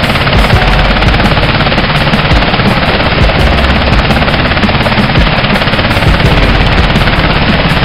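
UH-60 Black Hawk helicopter close overhead: loud, steady rotor noise with rapid chopping pulses, mixed with rotor wash buffeting the microphone.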